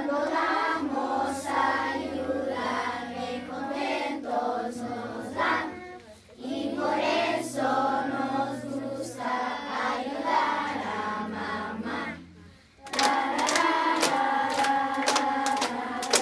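Children's choir singing a song, with two short breaks between phrases. In the last few seconds, sharp claps keep time with the singing.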